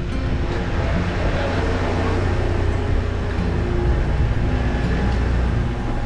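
Shuttle bus running on the road, a steady low engine and road rumble heard from inside the bus.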